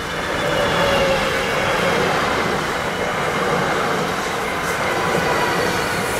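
An ÖBB Cityjet (Siemens Desiro ML) electric multiple unit passes close at speed. It makes a loud, steady rush of wheel and rail noise with thin whining tones that drop slightly in pitch as it goes by. The sound swells over the first second as the train arrives, then holds.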